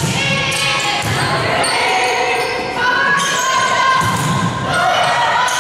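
Volleyball rally in a gymnasium: the ball is struck and thuds, with raised voices calling out over it, all echoing in the large hall.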